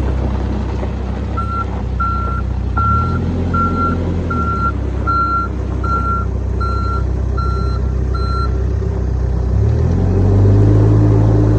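New Holland B95BTC backhoe's diesel engine running and revving up and down, while its reverse alarm beeps about ten times, a little over one beep a second, as the machine backs up. The engine speeds up again near the end.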